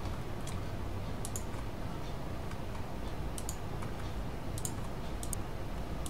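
Faint computer mouse clicks, about eight at irregular moments, some in quick pairs, over a steady low room hum.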